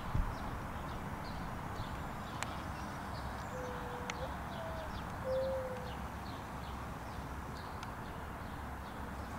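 A dove cooing, three low hooting notes in the middle, the second one a little higher, over a steady run of short high chirps from a small songbird and a low outdoor rumble. A soft thump right at the start.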